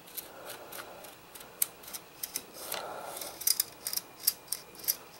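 Light, irregular metal clicks and short sliding scrapes as the outer magazine tube of a Marlin Model 1892 .22 lever-action rifle is drawn forward along the inner tube, with a cluster of quick clicks about three and a half seconds in.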